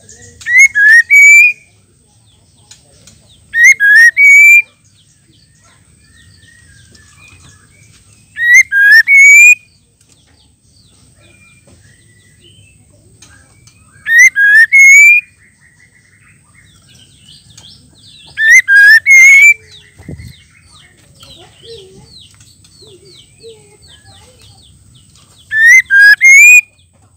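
Female white-rumped shama calling: a loud, short phrase of quick rising whistled notes, about a second long, repeated six times at intervals of roughly five seconds.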